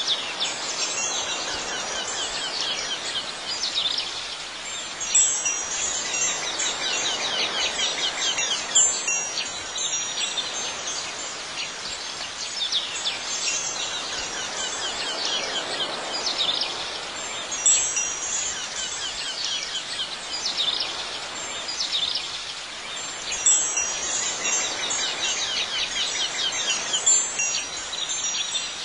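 Wind chimes tinkling in loose clusters, with a few louder strikes now and then, over a soft background hiss.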